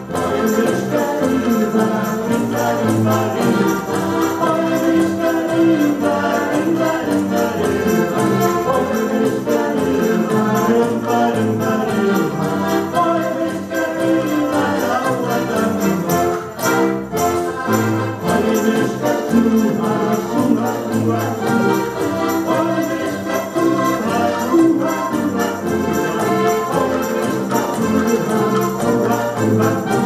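An ensemble of diatonic button-box accordions playing a polka together, with piano accompaniment and a steady bass beat.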